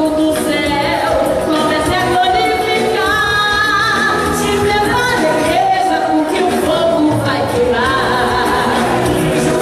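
A woman singing a praise song into a handheld microphone, amplified through a PA loudspeaker, with long held notes sung with vibrato.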